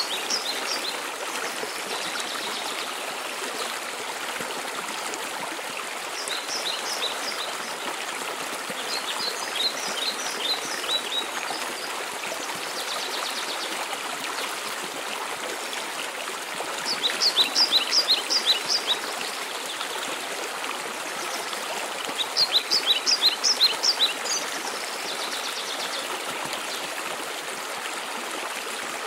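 Steady rushing water of a waterfall, with a songbird repeatedly singing short phrases of quick, falling high notes over it, the loudest phrases a little past the middle and again later.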